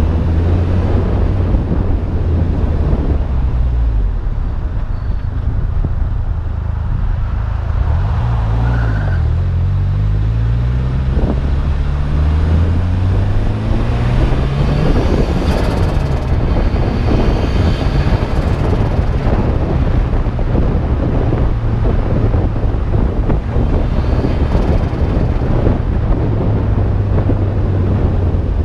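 Turbocharged Nissan GA16DET 1.6-litre four-cylinder engine driving the car on a light cruise, with wind noise on the microphone. The engine note rises steadily for several seconds partway through as the car accelerates, then holds steady.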